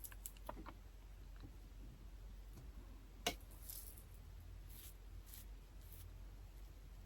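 Faint handling noises: a few small clicks and soft rustles, with one sharp click about three seconds in.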